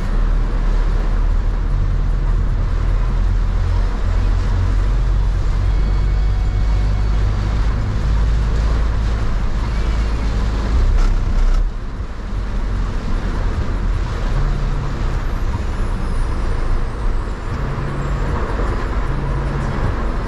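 Cabin noise of a Toyota van driving through heavy rain: a steady low engine and road rumble under an even hiss of rain and tyre spray, dipping briefly a little past halfway.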